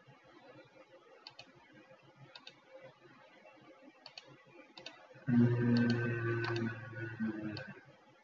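Sparse, quiet computer mouse clicks. About five seconds in, a much louder steady hum with several held pitches comes in for about two and a half seconds and then fades.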